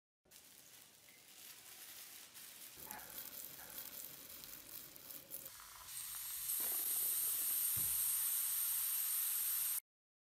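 Steady hiss and fizz of liquid in a glass tank of water, growing louder, much louder and brighter from about six seconds in as a stream is poured into the tank, then cutting off suddenly.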